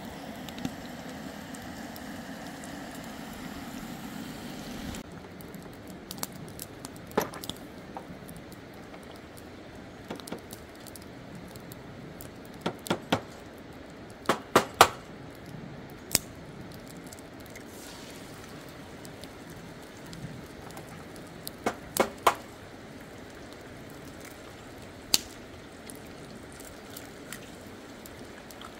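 Camp cookware and utensils being handled, giving scattered sharp clinks and knocks, some in quick pairs. A steady hiss underneath stops abruptly about five seconds in.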